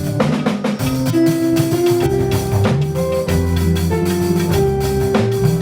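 Live church band playing the instrumental opening of a hymn: guitar and drum kit over held, changing chords.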